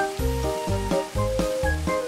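Background music: a light, bouncy tune over a steady repeating bass. A faint sizzle of sauce hitting hot oil in a wok lies underneath.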